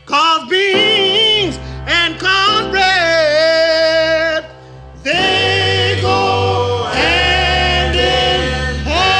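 Closing theme music: a song with a voice singing a melody over a steady bass line, one note held long, and a short break about halfway through.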